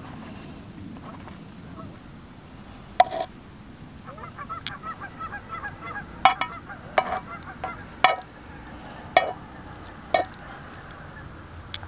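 Metal tongs clinking against a metal pan as fish is scooped onto bread, a sharp clink every second or so. Midway there is a rapid run of short honking calls.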